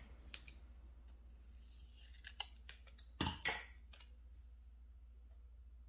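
Scissors snipping through a sheet of planner stickers: two sharp snips just past the middle, with a few light clicks of paper handling around them.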